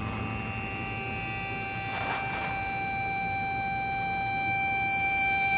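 A lit fuse hissing and sizzling under a steady high-pitched electronic tone that slowly grows louder, with a surge of hiss about two seconds in.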